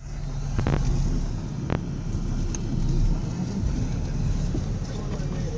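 A vehicle's engine running, heard from inside the cabin as a steady low rumble. Two sharp clicks come about a second apart near the start.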